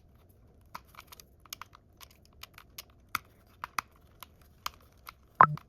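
Irregular light clicks and taps of a small screwdriver and plastic drone parts being handled, about two or three a second, with one louder click near the end.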